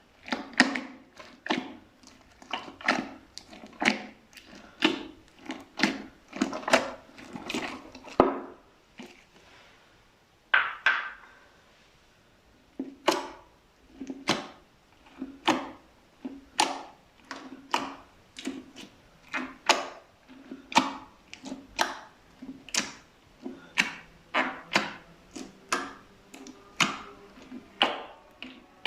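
Slime being pressed and mixed by hand, a short sticky squish about once a second, pausing for a few seconds in the middle and coming a little faster near the end.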